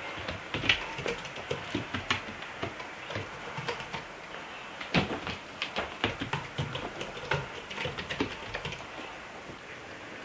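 A cat running and pouncing after a ribbon wand toy: irregular thumps and patters of its paws on a foam play mat, with a few sharper knocks, the loudest about a second in and again about five seconds in.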